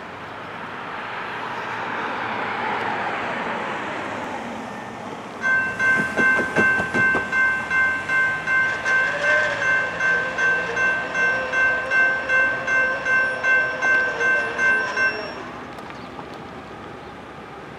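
Railroad grade-crossing warning bell ringing about twice a second while the crossing gate comes down, starting about five seconds in and stopping about ten seconds later. Before it, the noise of a passing road vehicle swells and fades.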